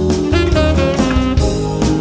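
Jazz backing music: a drum kit keeping a beat under a bass line and a wavering lead melody.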